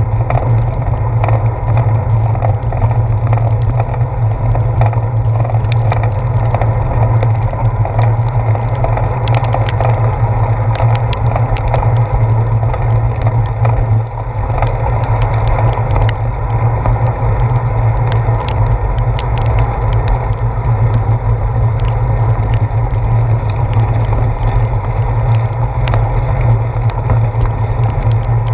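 Steady riding noise of a bicycle on wet pavement, picked up by a handlebar-mounted GoPro Hero 4: a deep, even rumble with many small ticks and rattles from bumps in the path.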